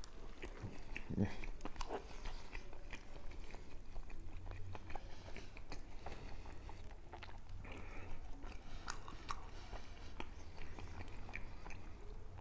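A person chewing and biting into a chilaquiles torta, a sandwich roll filled with sauced tortilla chips and chicken cutlet, with many small scattered clicks from the mouth and food.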